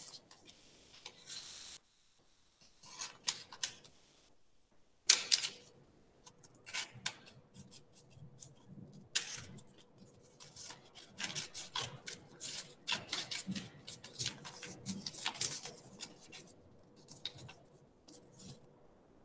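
Scissors snipping along the middle of a twisted paper loop (a Möbius strip), in a long run of short, irregular cuts mixed with paper rustling as the strip is turned in the hands.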